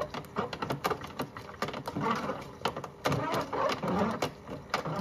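Modified toy washing machine tumbling a toy turtle in soapy water: the small drum motor runs, water sloshes, and the toy knocks against the drum in many irregular clicks.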